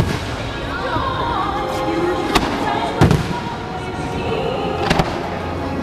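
Fireworks bursting over a music soundtrack: a handful of sharp bangs, at the start, about two and a half and three seconds in, and near five seconds, with music playing throughout.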